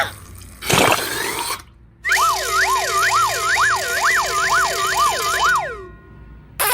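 A siren-like electronic warble, its pitch swooping up and down over and over for about four seconds, starting about two seconds in. It follows a short noisy whoosh about a second in, and another noisy burst starts at the very end.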